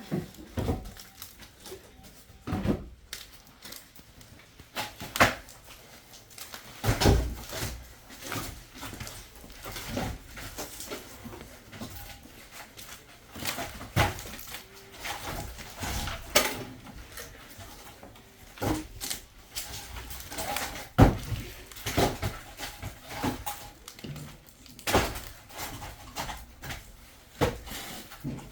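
Split firewood logs knocking and clattering as they are handled and stacked, a series of irregular wooden thuds and clunks, some sharp and loud.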